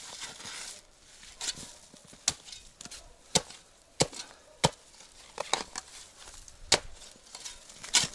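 A small spade chopping into the ground, with about nine sharp, uneven strikes. The loudest comes near the end.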